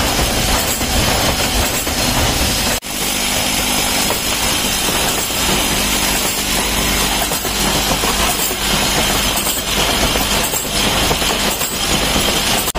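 Continuous, loud mechanical clatter and hum of metal-working machines making aluminum ferrules, with a brief dropout about three seconds in.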